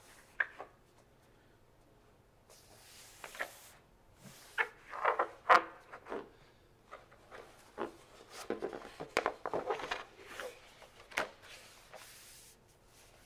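A large photo print on heavy paper stock being handled and turned around: stiff paper rustling and crinkling in irregular bursts, with a few sharp taps, the loudest about five and a half seconds in.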